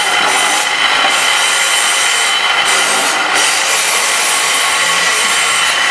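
Loud, steady grinding machine noise from machinery making concrete hollow blocks, with a faint high ringing held through it.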